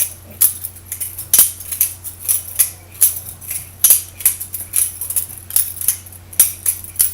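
Butterfly knife (balisong) being flipped: its metal handles snap open and shut against each other and the blade in a run of sharp clicks, about three a second and slightly uneven.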